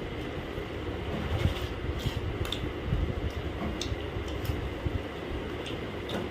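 Eating sounds: chewing, with scattered sharp mouth clicks and light clicks of fingers taking rice from a steel plate, over a steady low hum.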